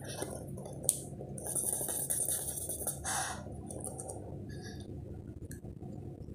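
A woman eating raw bitter gourd and chili: chewing with short sharp breaths blown out through pursed lips, the loudest about three seconds in, and a single click about a second in.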